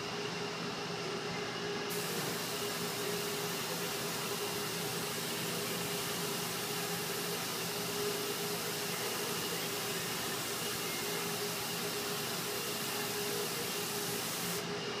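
Hydrographic activator sprayed in a steady hiss onto the floating print film, starting about two seconds in and stopping just before the end, to liquefy the film before dipping. A steady hum with a few constant tones runs underneath.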